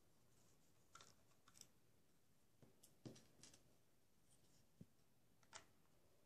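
Faint, scattered clicks and scrapes of a small screwdriver working screws out of a laptop SSD's metal mounting frame, a few sharp ticks spaced irregularly over the seconds.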